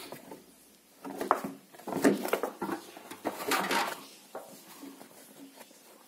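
Irregular rustling and light knocks of caps being handled and pulled out of a front-loading washing machine drum.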